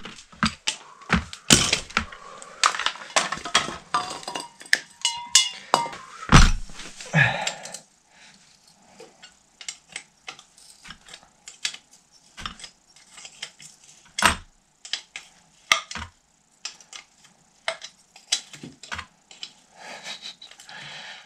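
Irregular metallic clinks and clicks of a hand wrench being worked, without a ratchet, on the bolt that holds the gearbox to a Dnepr MT-11 motorcycle engine. The clatter is dense and loud for the first eight seconds or so, then thins to scattered lighter clicks.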